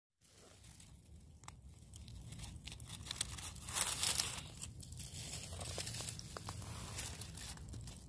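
Dry leaves and pine needles rustling and crinkling as a hand reaches under a pine log and pulls off clusters of mock oyster mushrooms. The sound starts after a moment of silence and is loudest about four seconds in.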